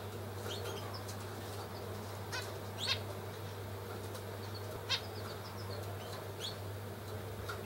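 Zebra finches calling: a few short, sharp calls, the loudest about three and five seconds in, among fainter short chirps, over a steady low hum.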